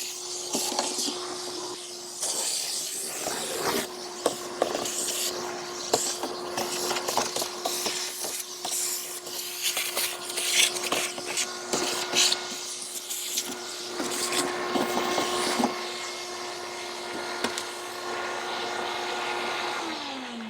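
A small electric cleaning tool's motor running at a steady pitch while grass clippings and debris rattle and click as they are cleared out of a mower's motor bay. The tool is switched off near the end and its pitch falls as it spins down.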